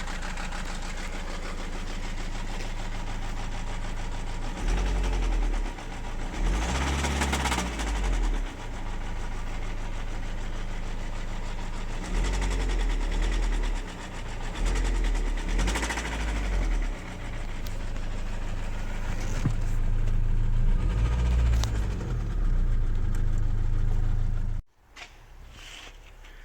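Renault Laguna II's 1.9 dCi F9Q four-cylinder turbodiesel running with a knock in the engine, its speed rising and falling several times. The sound cuts off suddenly near the end.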